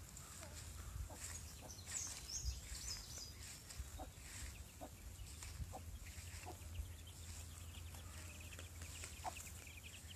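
Chickens: a hen gives short, low clucks about once a second while her chicks peep in high, thin chirps, loudest around two to three seconds in and again near the end.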